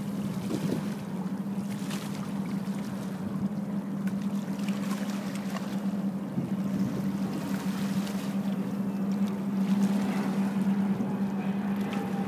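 Running river water with a steady low mechanical hum underneath.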